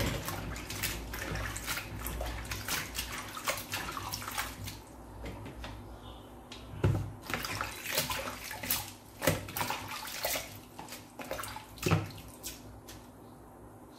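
Water splashing in a sink or basin in irregular bursts, with a couple of louder knocks about seven and twelve seconds in.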